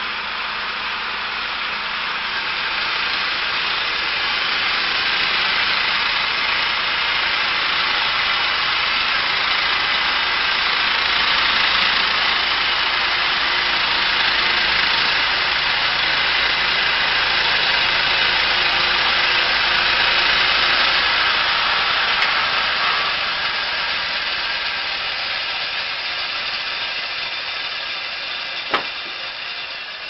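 Portable band sawmill's small petrol engine running at speed while the band blade cuts through a log; the sound swells through the middle and fades near the end. A single sharp click near the end.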